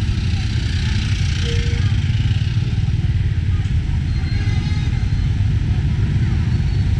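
Tuk tuk's engine running while riding through city traffic, with a steady low rumble of road and wind noise.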